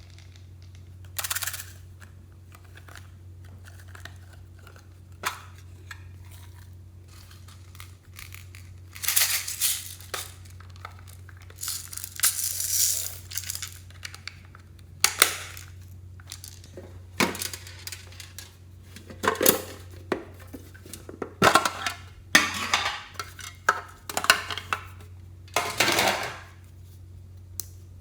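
Hands kneading and pressing clear slime being mixed with makeup and clay, giving irregular sticky squishes and sharp pops that come thicker in the second half.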